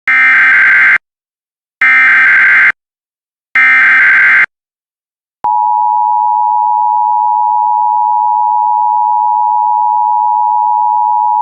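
Emergency Alert System SAME header: three loud bursts of buzzing digital data tone, about a second each, followed about a second later by the steady EAS attention tone, which holds to the end.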